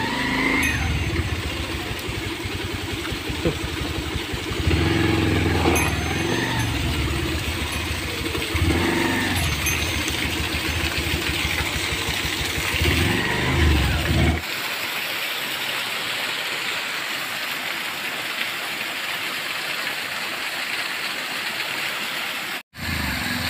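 Motorcycle engine running at low speed over a rough track, its note rising and easing several times. About fourteen seconds in it cuts to a steady rushing hiss of a small waterfall splashing over rocks.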